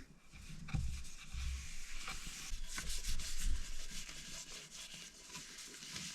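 Board butter being rubbed into the face of a maple, cherry and walnut cutting board by hand, a continuous scrubbing hiss with a few low knocks near the start.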